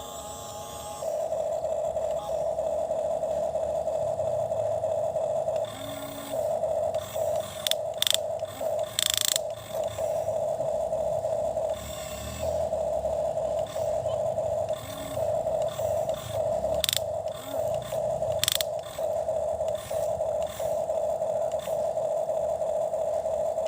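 Toy excavator's small electric motor and plastic gearbox whirring in spells as the arm and bucket move, stopping and restarting several times, with a few sharp clicks and scrapes of the bucket in between.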